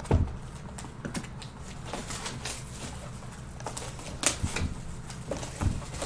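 Irregular light clicks and taps of small objects being handled on a table, with a couple of louder knocks, over a steady low hum.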